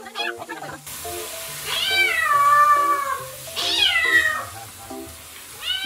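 A kitten yowling in anger at its first bath: two long, drawn-out yowls, each dropping in pitch, with a third beginning at the end.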